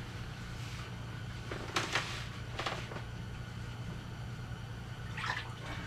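A steady low hum, with a few brief rustles and scrapes of hands handling gear, about two seconds in and again near the end.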